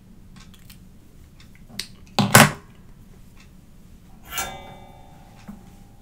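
Small tools being handled at a soldering bench: a short, loud scraping clatter about two seconds in, then a metallic clink that rings briefly a little after four seconds, with faint ticks between.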